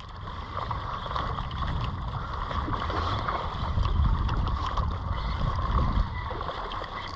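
Sea water lapping and sloshing against a fishing kayak's hull, a steady watery wash with a low rumble underneath.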